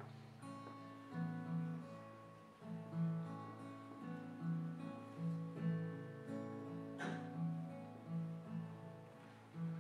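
Solo plucked string instrument playing a song's instrumental introduction, chords struck in a steady rhythm over a held low note.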